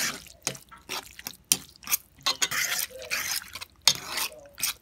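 A spoon stirring a pot of red beans and rice, in irregular strokes with clicks against the pot.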